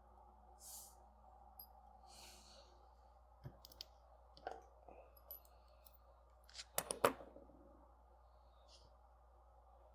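Small metal clicks and taps as the zirconium UFO haptic coin and its small steel balls are handled, scattered through the second half with a cluster of sharper clicks about seven seconds in, the loudest of them.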